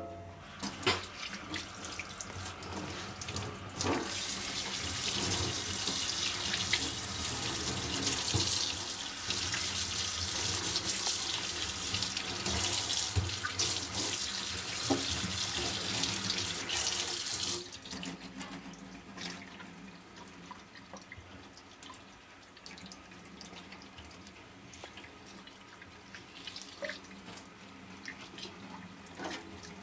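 Water from a kitchen tap running into a stainless steel sink while a cut eel is rinsed by hand. The flow comes on strongly about four seconds in, then drops to a quieter thin stream a little past halfway, with small splashes and knocks of hands and fish in the sink.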